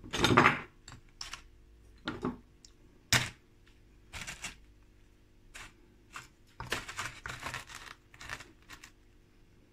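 Dragon stone (Ohko rock) pieces being set down and pushed into dry sand: irregular scraping and gritty crunching of rock on sand, with a sharp knock about three seconds in and a longer run of scraping near the end.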